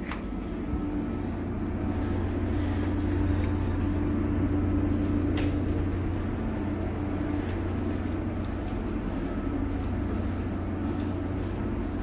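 Steady low hum of a ship's running machinery, heard inside the ship's accommodation. A click as a cabin door opens comes right at the start, and a short sharp knock about five seconds in.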